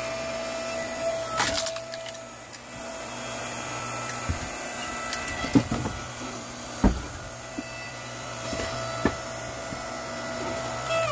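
Split firewood knocking as pieces are set down on a stack: a handful of sharp wooden knocks a second or more apart, the loudest about two-thirds of the way through. Under them runs a steady mechanical hum.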